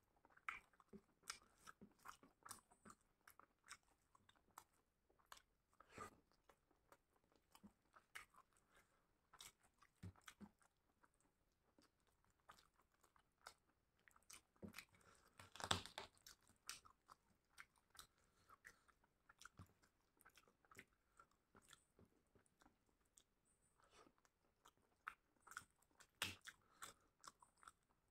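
Faint close-up eating sounds: a person chewing and biting on chicken leg and rice, with many small wet mouth clicks at an irregular pace, loudest about halfway through.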